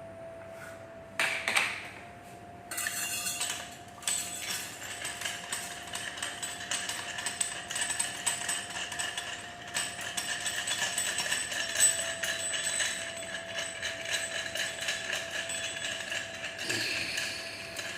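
Hairdryer parts being handled and fitted together during assembly: a few sharp clicks, then from about four seconds in a dense run of small clicks and rattles, over a faint steady hum.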